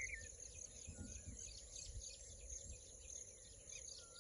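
Faint natural ambience: insects chirring steadily, with a bird repeating a short whistled phrase about once a second.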